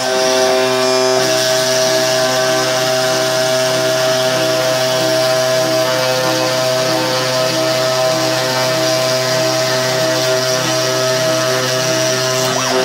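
Spindle of a homemade CNC milling machine running steadily while milling plywood, a constant whine with some tones pulsing on and off in quick even steps.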